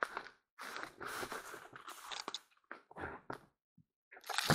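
Footsteps crunching and rustling through dry brush and grass in a run of irregular scrapes with short pauses, and a louder crunch near the end.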